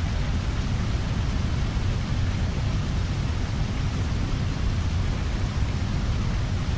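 Steady, loud rushing noise with a heavy low rumble, even throughout, with no distinct events.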